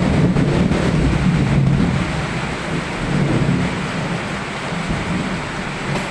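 Steady rain with a low rumble underneath, loudest in the first couple of seconds.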